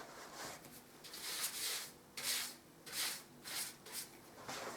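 Wallpaper being smoothed onto the wall in a series of about six short rubbing strokes, one of them longer.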